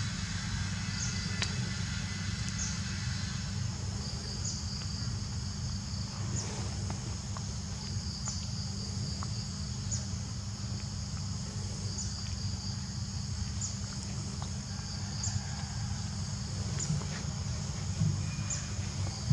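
Insects buzzing steadily in a high band, with a short high chirp repeating about every two seconds, over a steady low rumble.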